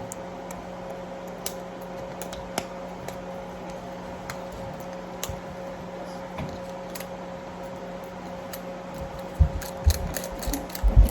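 Scattered light clicks and taps of plastic toy packaging being handled, with a few dull thumps near the end, over a steady electrical hum.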